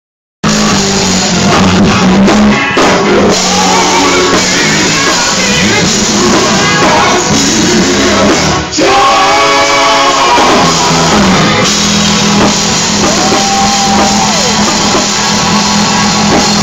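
Live gospel music: male singers with microphones over a band of electric guitar, keyboard and drum kit, played loud.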